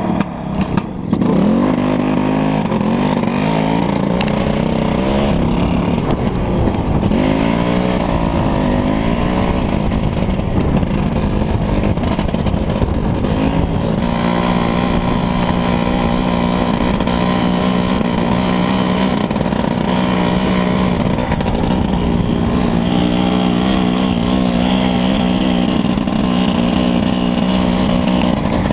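Engine of a small vehicle driving over river ice, revving up and down through about the first dozen seconds, then running at a steady pitch.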